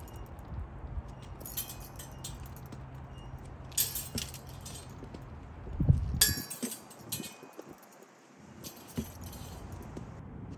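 Steel rapier blades clinking against each other in about four short flurries of quick contacts, with a low thud about six seconds in.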